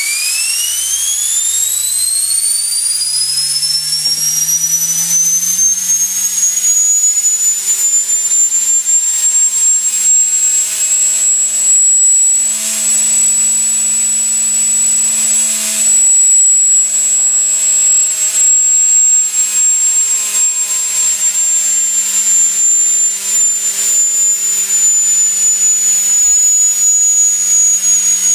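Wolfgang model steam turbine spinning up on steam: a whine rises steeply over the first several seconds and settles into a high steady pitch, with steam hissing throughout. The pitch sags slightly near the end.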